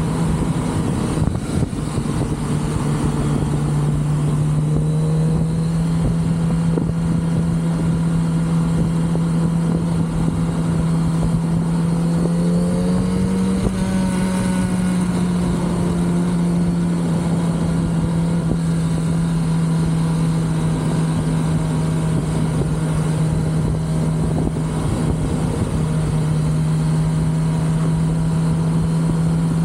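Kawasaki Z900RS's 948 cc inline-four running through its stock exhaust under way at a steady, even pitch. The pitch rises a little about halfway through, then eases back.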